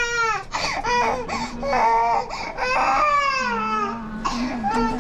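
Infant crying: about five high-pitched wails in a row, most falling in pitch, with short catches of breath between them.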